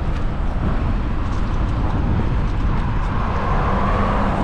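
Wind buffeting the microphone and road noise while riding a bike, a steady heavy rumble, with a higher whine swelling in near the end.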